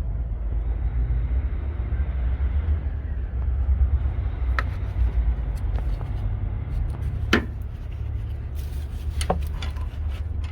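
Heavy-truck diesel engine idling steadily, with a few sharp clicks and knocks over it, the loudest about seven seconds in.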